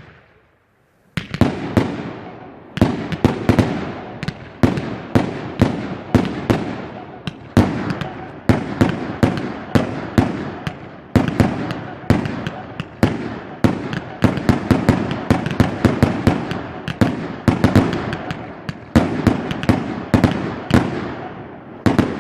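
Fireworks going off: a long, unbroken run of sharp bangs, about two a second, starting about a second in, each bang trailing off into an echo.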